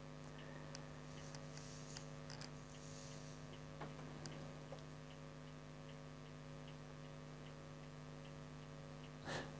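Faint steady electrical mains hum with a light, regular ticking about twice a second. Near the end there is one brief soft burst of noise.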